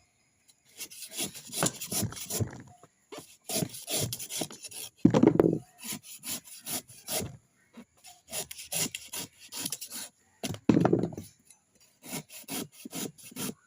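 Coconut being scraped by hand: runs of short, rough scraping strokes, a few a second, with brief pauses between the runs. Two heavier strokes stand out, about five seconds in and again near eleven seconds.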